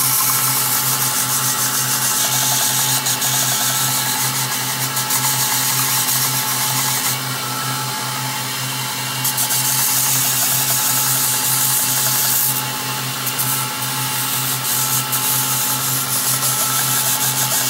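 Belt grinder running with a 220-grit belt, a steel knife blade ground against it in back-and-forth passes to raise and roll a wire edge, under a steady motor hum. The grinding hiss drops out briefly about seven seconds in and again near twelve seconds, while the blade is lifted and turned, and the belt keeps running.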